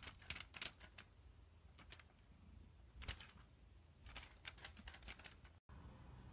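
Faint scattered clicks and rustles over a low hum, a quick cluster in the first second, one about three seconds in and more around four to five seconds; near the end a cut brings in a steadier hum.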